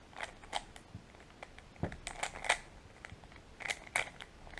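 A 3x3 Rubik's cube being scrambled by hand: its plastic layers turning with quick, irregular clicks and clacks in small clusters.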